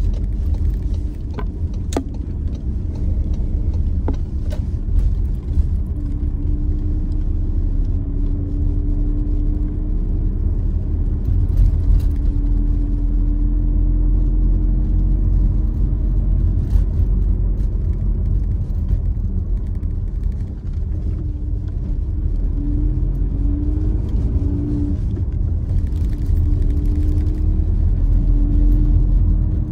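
Car driving through town, heard from inside the cabin: a steady low rumble of engine and tyre noise, with a faint engine tone that rises and falls as the car speeds up and slows. A few light clicks sound in the first few seconds.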